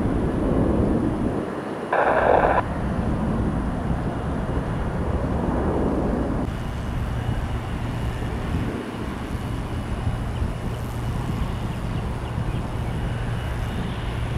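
Jet airliner engine noise from an aircraft climbing out after takeoff, with wind on the microphone and a brief louder burst about two seconds in. Partway through it changes to a steadier distant jet noise with a constant low hum.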